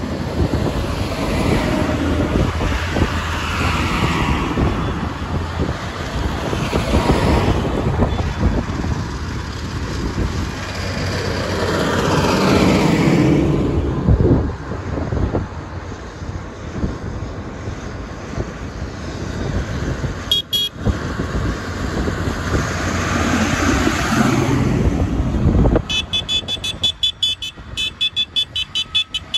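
Large farm tractors driving past one after another, the engine and tyre noise swelling and fading as each one goes by. A brief horn toot comes about twenty seconds in, and quick repeated horn toots near the end.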